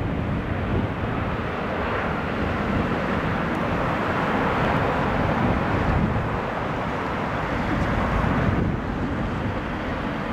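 Twin-engine Boeing 767 jet engines roaring at go-around thrust as the airliner climbs away from a wind-shear landing attempt, mixed with gusty wind buffeting the microphone.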